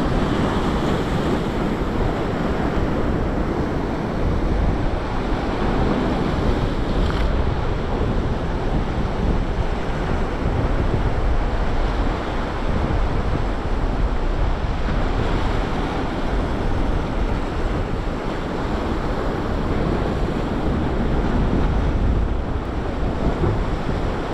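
Sea surf washing in steadily, with wind buffeting the microphone in a low rumble.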